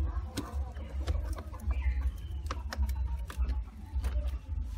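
Small sharp clicks and ticks of a screwdriver working the terminal screw of a plastic miniature circuit breaker, over a low rumble, with a couple of short animal calls in the background.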